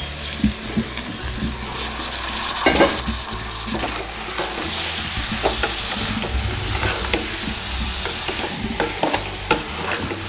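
Metal ladle stirring soaked basmati rice into frying onion-tomato masala and sweet corn in a pressure cooker pot: a steady sizzle of the hot oil and masala, with scattered scrapes and knocks of the ladle against the pot.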